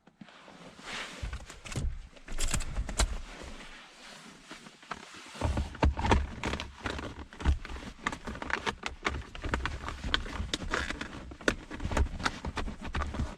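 Irregular clicks, knocks and low thumps of hands handling parts and tools, with no steady machine running.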